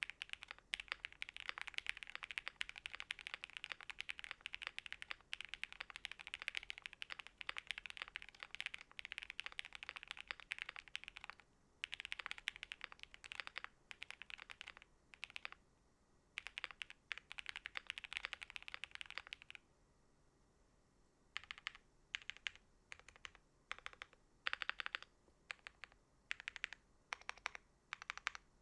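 QK65 mechanical keyboard with lubed Quartz V2 switches, GMK keycaps and an FR4 plate being typed on, fast and continuous for about the first eleven seconds, then in shorter bursts, and after a short pause near two-thirds of the way through in separate short runs and single keystrokes. Its foams and silicone dampener give it a relatively deep sound.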